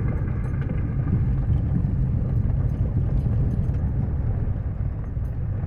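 Car driving along a gravel road, heard from inside the cabin: a steady low rumble of the tyres on gravel and the running engine, with a few faint ticks.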